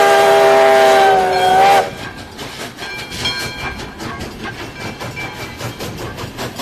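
A locomotive sounds a long, loud multi-note chord blast that stops about two seconds in. After it, the train keeps rolling with quieter rhythmic wheel clicking and rumble.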